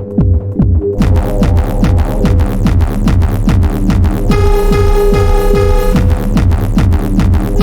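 Improvised electronic music with a steady kick drum thumping about four times a second under a held synth tone. Crisp high ticks come in about a second in, and a bright sustained synth chord enters around the middle.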